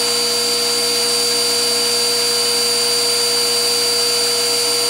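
Metal lathe running under power while a turning tool cuts down an aluminium round bar: a steady machine hiss with a high, even whine and a lower hum that do not change.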